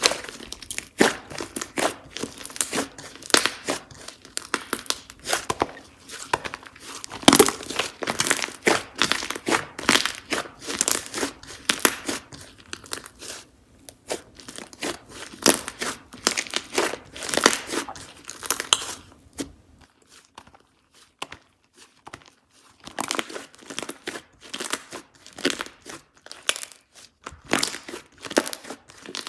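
Slime being squished and stretched by hand, giving rapid crackling and popping clicks. The clicks stop for a few seconds about two-thirds of the way through, then start again.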